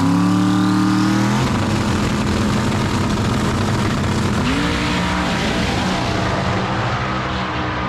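Twin-turbo Camaro drag car's engine revving up and held high at the starting line, then launching about four and a half seconds in and pulling away down the track, fading as it goes.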